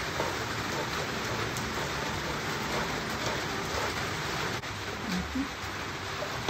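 Steady rain falling hard, an even rush of rain on a surface.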